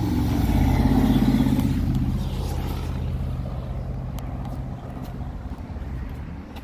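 A motor vehicle engine passing close by, loudest about a second in and then fading away.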